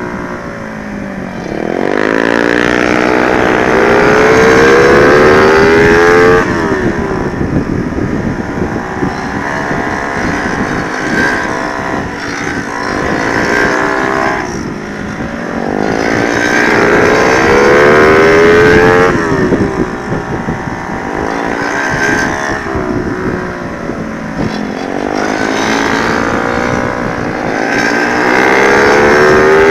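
Honda Sonic 125 motorcycle with a swapped-in 150cc single-cylinder engine at full throttle, its pitch climbing steeply and falling back several times as it accelerates and comes off the throttle. Wind buffets the microphone.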